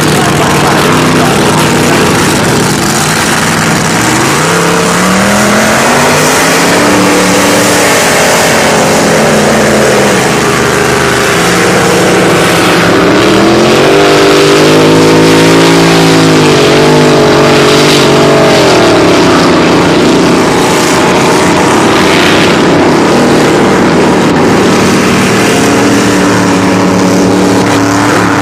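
Grand Prix racing hydroplanes' V8 engines running at speed on the water, their pitch climbing and falling as the boats pass, the loudest pass about halfway through.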